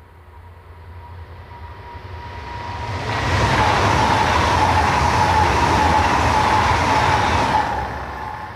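A high-speed electric passenger train approaching and rushing past at speed, with a steady whine throughout. It grows louder over the first three seconds, passes loudly for about four seconds, then quickly fades.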